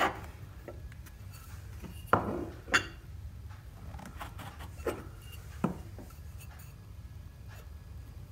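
A glass bowl and a small drinking glass being pressed down through soft dough onto the countertop and lifted again to cut doughnut rings: four short knocks of glass, two close together about two seconds in and two fainter ones a few seconds later, with light clinks between.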